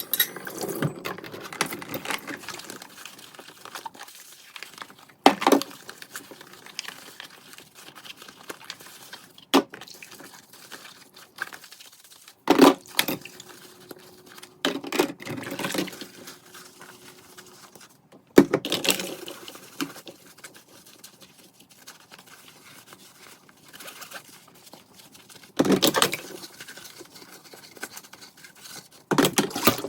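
Kitchen tidying by hand: things being picked up and set down, with a handful of separate knocks and clatters spaced several seconds apart and quieter rustling and handling in between.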